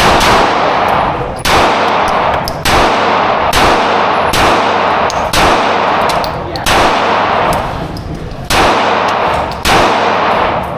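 Gunshots fired slowly one at a time, about nine in all, roughly a second apart, each followed by a long ringing tail.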